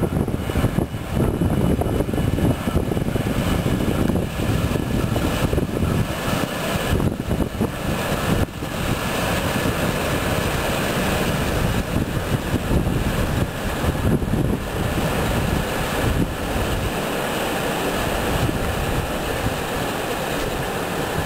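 Diesel engine of an inland motor cargo barge running steadily as it passes close by and moves off, with its propeller wash churning the water.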